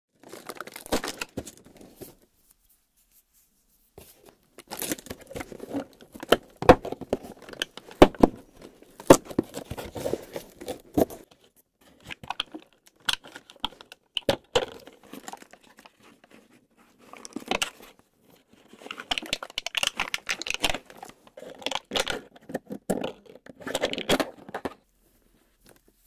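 Hands tearing and crinkling a cardboard advent-calendar box and its plastic wrap, and punching through a perforated cardboard door. It comes as irregular bursts of rips and crackles, with a pause of about two seconds near the start.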